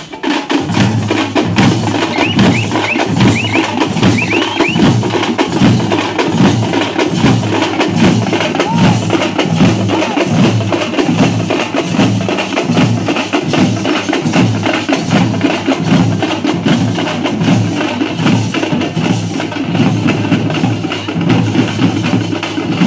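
A troupe of drummers beating stick-struck drums together in a loud, fast, steady rhythm, starting up right at the beginning.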